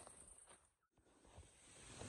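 Near silence: faint background hiss that drops out completely for a moment about a second in.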